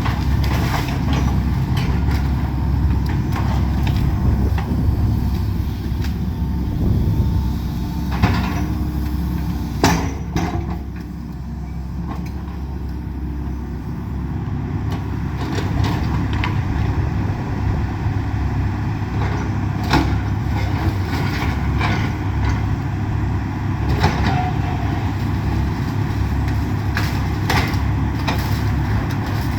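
Excavator's diesel engine running steadily, with scattered sharp cracks and knocks as the house is broken apart. The strongest knocks come about eight and ten seconds in, after which the engine runs lower for a few seconds before picking up again.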